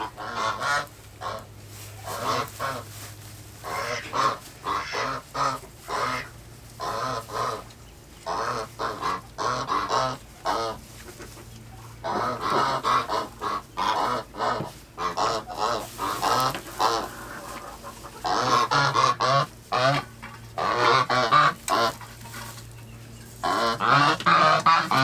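Farm waterfowl honking and calling over and over, the calls coming in clusters and loudest near the end.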